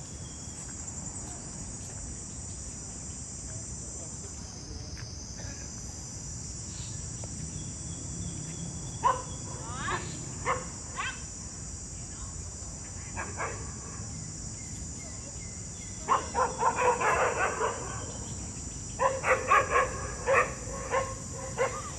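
Dogs barking: a few separate barks about nine to eleven seconds in, then two quick runs of barks near the end. Under them runs a steady high-pitched insect drone.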